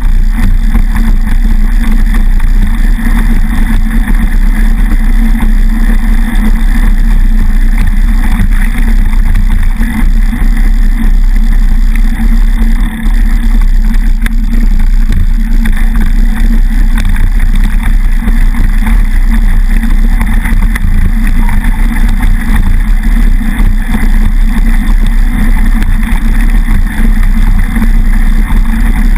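Loud, steady rumble of wind and vibration on a handlebar-mounted action camera while a mountain bike rolls its knobby tyres over a dirt and gravel track.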